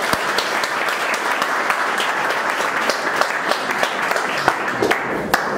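Applause: many people clapping together, thinning out near the end.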